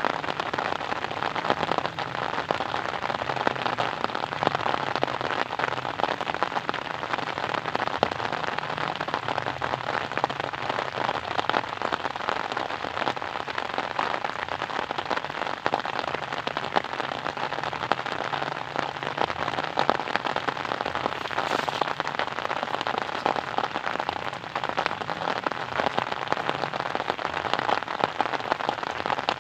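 Steady rain falling on a surface: an even, unbroken patter of many fine drop ticks.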